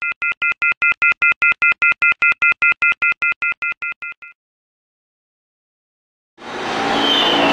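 A rapid run of electronic beeps: a three-note tone chord pulsing about six times a second, which fades out about four seconds in. After two seconds of silence, the rumbling noise of a subway train fades in near the end.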